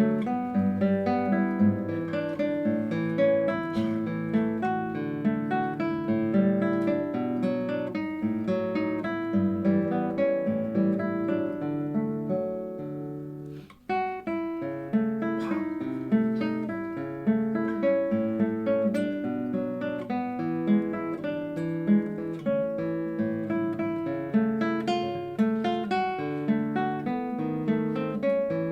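Solo classical guitar playing a fingerpicked piece. About halfway through, the notes die away into a short pause, then the playing starts again.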